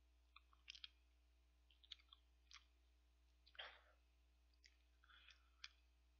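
Faint mouth clicks and lip smacks from eating soft vanilla ice cream off a metal spoon, about a dozen small scattered clicks over a low steady hum.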